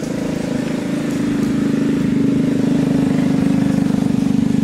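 A motor engine running steadily with a fast, even throb, getting a little louder about two seconds in.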